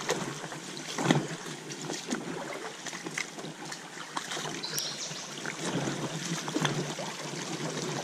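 Shallow creek water running and rippling over rocks, with scattered knocks and rustles over it.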